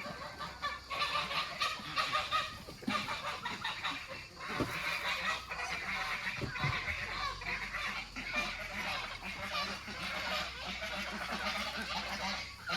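A flock of farmyard fowl calling continuously, with many honking and chattering calls overlapping.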